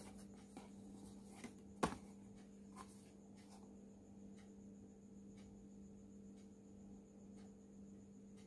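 Near silence: a steady low hum of room tone, with a few light clicks and taps from handling a phone. The sharpest tap comes about two seconds in.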